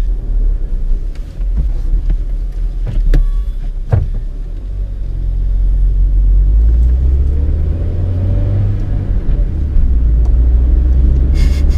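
Honda Civic with a stripped-out interior, its engine and road noise running as a steady low rumble inside the cabin. A few sharp knocks come about three to four seconds in, then the engine drone grows louder and holds.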